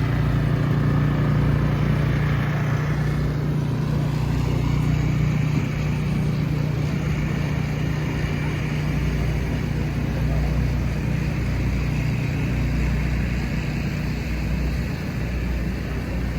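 A motor vehicle's engine running steadily with a low hum, amid city street noise.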